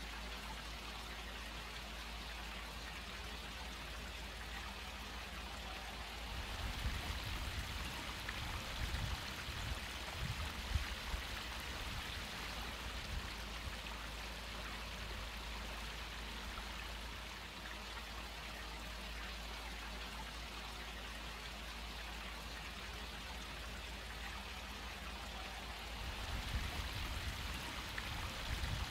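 Steady splash and trickle of running water in a garden pond. Low rumbles on the microphone come in about seven seconds in and again near the end.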